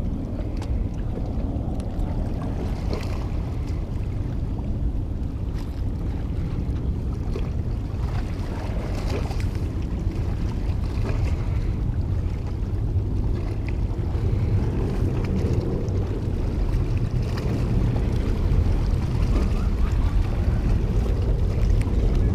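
Wind buffeting the microphone: a steady low rumble that grows a little louder in the second half, with a few faint scattered ticks.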